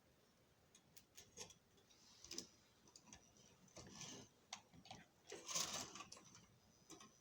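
Faint, irregular clicks and brief spurts of whirring from a repaired Lionel 10E locomotive motor trying to go on dirty track. It keeps stalling because of poor track contact, not a motor fault.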